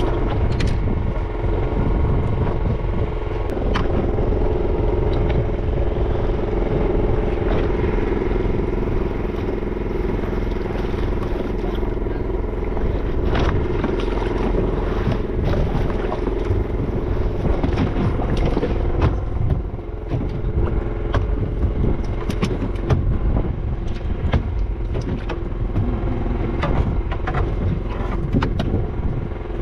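A motor on a fishing boat running steadily, with scattered sharp knocks and clicks of handling on deck.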